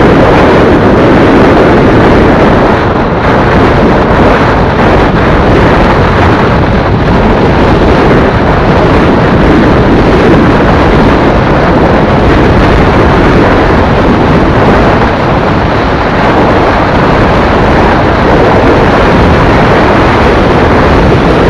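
Loud, steady wind rush over the microphone of a motorcycle riding at highway speed, mixed with the bike's engine and road noise.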